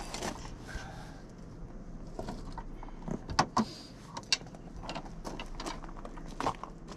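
Scattered sharp metal clinks and knocks of tools working at a stuck bolt in a side-by-side's steering knuckle and ball joint, a few strokes grouped about halfway through and more near the end.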